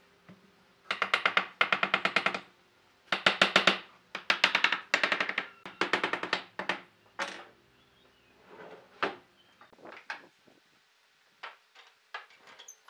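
A hammer striking a pine frame in quick runs of rapid blows, several bursts of about eight strikes a second, followed by a few scattered single knocks.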